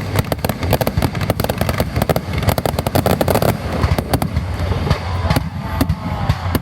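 Fireworks going off in quick succession: many sharp cracks a second over a continuous low rumble of booms.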